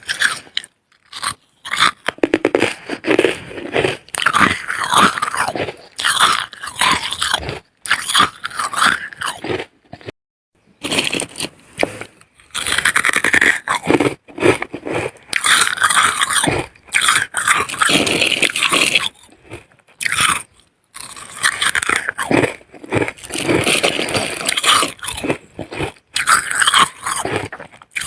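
Freezer frost being bitten and chewed: crisp crunching in runs of a few seconds, with short pauses between mouthfuls.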